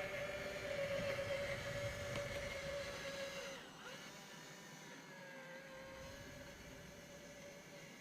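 Hydraulic pump of an RC4WD 1/14-scale hydraulic bulldozer whining steadily at one pitch. About three and a half seconds in it dips briefly in pitch and drops in level, then carries on more quietly.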